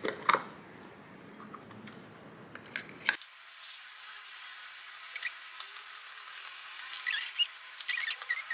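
Light clicks and taps of plastic mixing cups being handled and set down on a tabletop, with a sharper tap just after the start and another about three seconds in, then a cluster of small ticks near the end.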